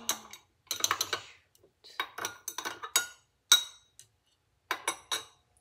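Glass stirring rod clinking against the inside of a glass beaker while a solution is stirred: several quick runs of light ticks with short pauses between them, the sharpest single clink a little past halfway.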